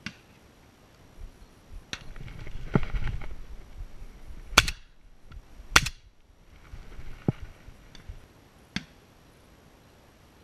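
Rumbling handling noise, then a series of sharp knocks and cracks, the two loudest about halfway through, as the ground-level camera is bumped and moved.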